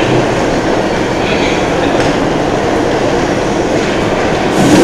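Train running past with a steady, loud rumble, and a brief louder hiss near the end.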